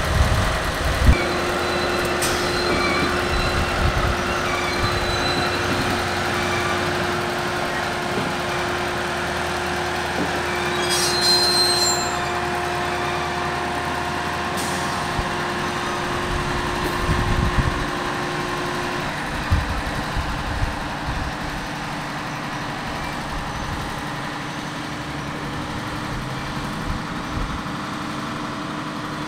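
Diesel genset switcher locomotive running as it moves slowly along the track, with a steady engine drone and a hum that drops out about two-thirds of the way through. A brief high-pitched squeal sounds partway through.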